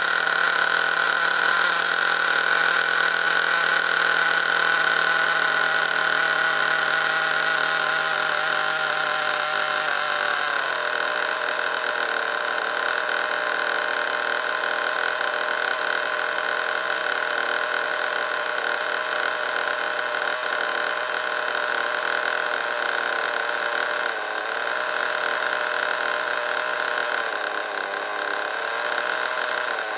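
Small nitro (glow-fuel) engine of a radio-controlled buggy running at a steady idle just after a cold start, warming up. Its pitch drops slightly about ten seconds in.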